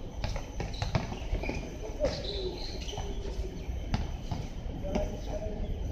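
Basketball being dribbled and bouncing on a hard outdoor court: a series of sharp thuds at uneven intervals. Short chirping calls sound in the background.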